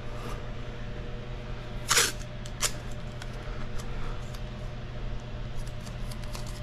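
Masking tape and plastic sheeting being handled: a brief loud rasp about two seconds in, a sharp snap just after, then light rustles and ticks near the end, over a steady low background hum.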